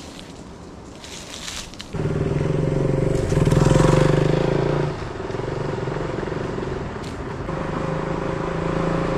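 A motorcycle engine comes in suddenly about two seconds in, loudest for a couple of seconds as the bike pulls away, then eases a little and keeps running steadily. Before it there is only faint forest ambience with light rustling.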